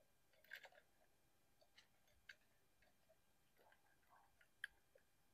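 Faint, scattered metallic clicks of small parts being handled: the screws and springs of a Royal Enfield Bullet 500's clutch cover plate being set onto the clutch posts by hand. There is a small cluster of clicks about half a second in and a sharper single click near the end, with near silence between.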